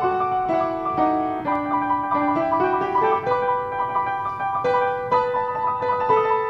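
Piano music: a melody that steps down over the first second and a half, then climbs back up note by note about two to three seconds in.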